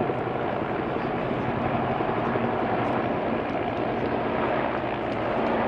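Military helicopter running overhead: a steady, continuous drone of engine and rotor with no gunfire.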